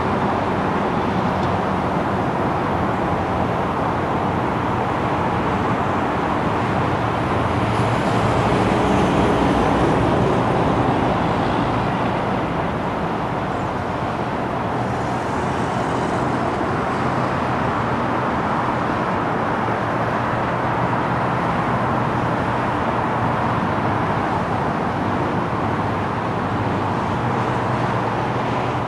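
Steady road-vehicle noise: a continuous rush of traffic with a low hum underneath, swelling slightly about eight seconds in and easing a few seconds later.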